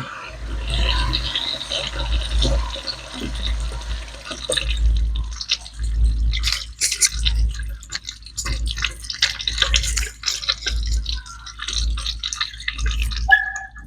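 Toilet refilling just after a flush: water trickling and dripping, with many small irregular splashes over a low rumble.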